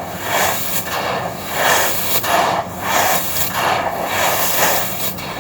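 Dry red sand-and-cement chunks crunching and crumbling with a gritty rustle. The rustle swells and fades about every two-thirds of a second.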